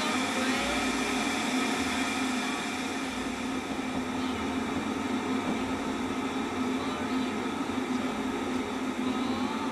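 Electric kettle heating water toward the boil: a steady noise with a constant low hum.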